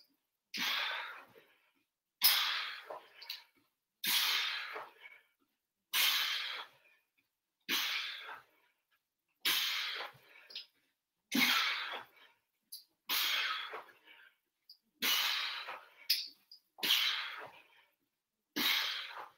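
A man breathing out hard with each crunch, a rush of air about every two seconds, eleven or so in a row with silence between them: the effort breaths of a steady set of abdominal reps.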